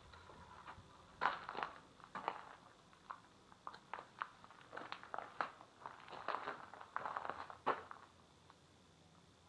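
Footsteps of a person walking, a run of irregular scuffs and clicks that stops about eight seconds in.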